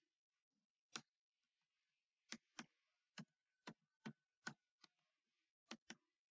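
Faint computer keyboard keystrokes as someone types code: about ten separate key clicks at an irregular typing pace, one about a second in and the rest coming in a run from a little past the middle.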